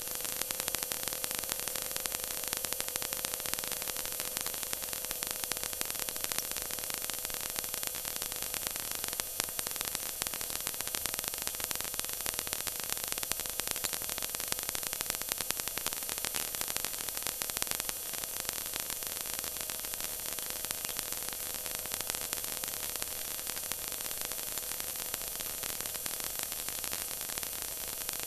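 Stock car running flat out on a banked oval, heard through an in-car camera microphone: a steady, hiss-like wall of engine, wind and road noise with a faint steady engine tone underneath.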